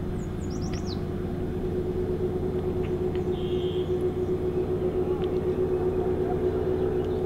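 Steady engine-like drone with a fixed hum. A few quick bird chirps come about half a second to a second in.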